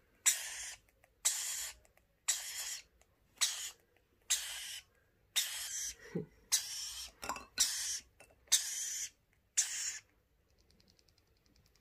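Baby lorikeet chick giving harsh, raspy begging calls, about ten of them roughly a second apart, stopping near the end, where faint clicking follows. The calls are the hungry chick begging for hand-rearing formula.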